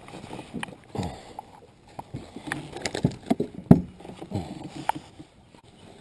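A small largemouth bass flopping and knocking against the plastic deck of a Hobie kayak as it is swung aboard and handled, an irregular run of knocks and thumps, loudest about three and a half seconds in.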